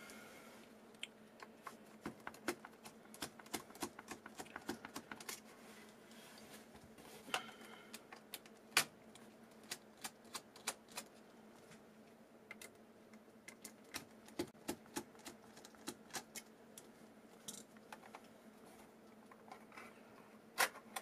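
Scattered light clicks and taps of a small black metal enclosure being handled and taken apart, irregular and a few a second, with a few sharper knocks. A faint steady hum sits underneath.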